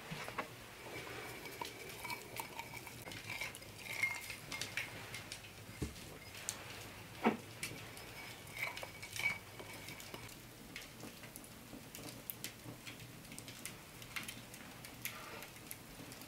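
Small red glazed earthenware cups knocking and clinking as they are picked up, buttered and set down on a table, a series of light clicks with a few sharper knocks.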